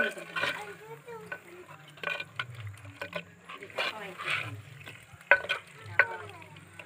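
Steel ladle stirring thick chicken curry in a clay pot, with several sharp scrapes and knocks against the pot at irregular intervals, while the freshly added ground masala sizzles in the oil.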